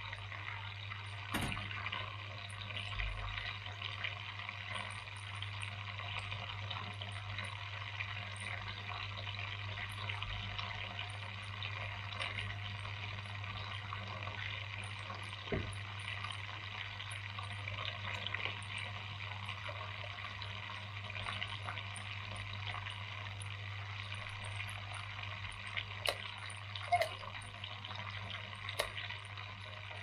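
Water trickling steadily down the strands of a small plaster tabletop waterfall fountain into its basin, with a steady low hum underneath and a few faint ticks.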